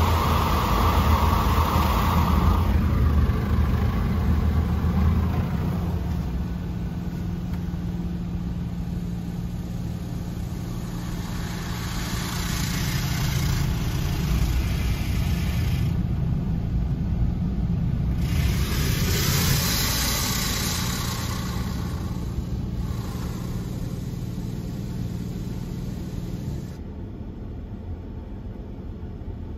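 Mark VII automatic car wash machine running over the car, heard from inside the cabin. A steady low machine drone runs throughout, with a heavier rumble for the first few seconds. Twice, a hiss of water spray on the car swells and fades.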